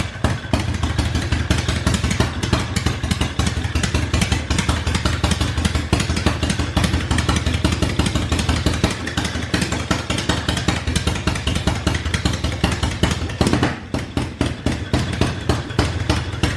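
1980 Harley-Davidson Shovelhead 80-inch V-twin running on its first start after a broken magneto was replaced with an electronic ignition. The engine note briefly falls away about three seconds before the end, then picks up again.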